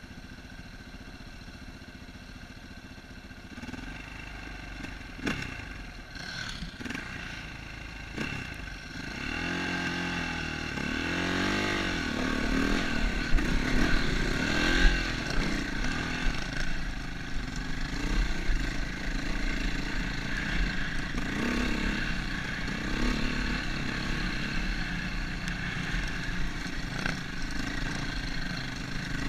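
KTM enduro motorcycle's single-cylinder four-stroke engine, quietly at low revs at first, then revving up and down as it climbs a rocky trail, and running steadily after that. A few sharp knocks come about five to eight seconds in.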